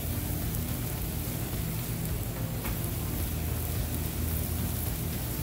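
Burger patties and hot dogs sizzling steadily on a seasoned grate griddle over hot charcoal, with a low steady hum underneath.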